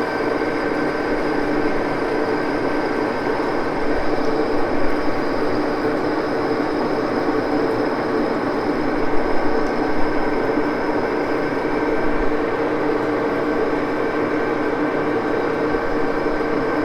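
Axelson engine lathe running steadily, an even mechanical hum with several steady tones in it.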